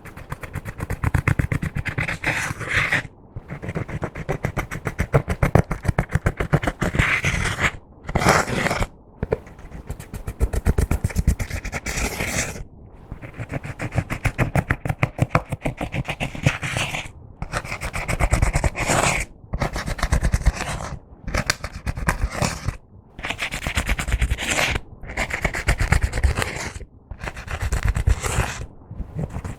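Slime being worked by hand, squished and stretched into a dense run of sticky crackling clicks and squelches. It comes in stretches of a few seconds with short breaks between them.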